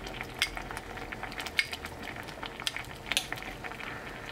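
A pot of cabbage doenjang soup bubbling at the boil, with fine crackling from the bubbles. Over it come a few sharp clicks and clinks of a spoon and a small glass bowl as broth is scooped out to taste for seasoning.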